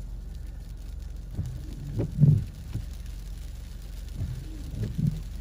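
Sleet and rain hitting the outside of the car, heard from inside the cabin as irregular low taps and knocks, the loudest cluster about two seconds in, over a steady low hum.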